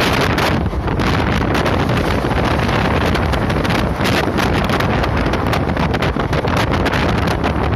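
Wind buffeting a phone's microphone held at the open side of a fast-moving passenger train, over the train's steady running noise.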